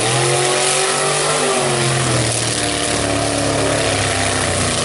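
Lifted mud truck's engine revving hard and held at high revs as the truck drives through a mud hole. The pitch climbs at the start, sags briefly about two seconds in, then holds steady.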